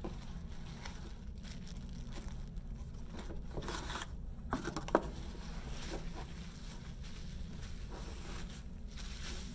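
Cardboard packaging and plastic bubble wrap rustling and crinkling as items are lifted out of a shipping box, with one sharp tap about five seconds in, over a steady low hum.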